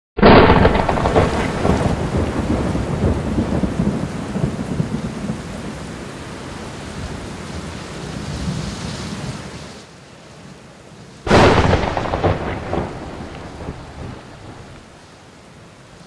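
Two claps of thunder, one at the start and one about eleven seconds in, each breaking suddenly and rumbling away over a few seconds, over the steady hiss of heavy rain.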